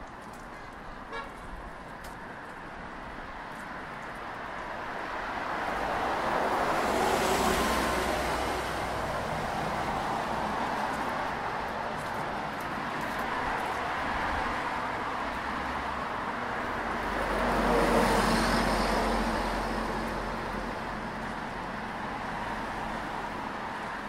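Road traffic on a multi-lane city street: a steady hum of cars, with two louder vehicles passing by, one about a third of the way in and one about three-quarters through.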